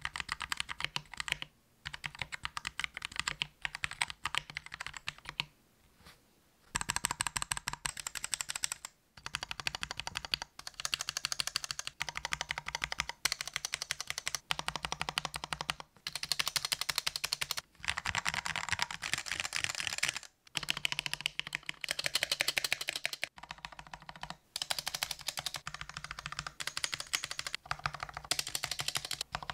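Typing on a Gamakay K61 mechanical keyboard fitted with Gateron Yellow linear switches lubed with Krytox 205G0: fast runs of clacking keystrokes broken by brief pauses, the longest about six seconds in.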